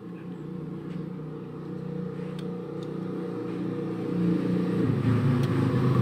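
A motor vehicle engine runs steadily in the background and grows louder toward the end. A few faint clicks come over it as the relay and overload protector are handled onto the compressor terminals.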